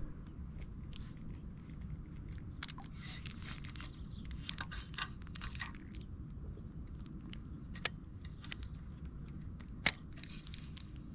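Spinning reel on a light LRF rod being cranked and handled, its gears and line giving a crunchy whirr in short spells, with scattered small clicks and one sharp click near the end over a low steady rumble.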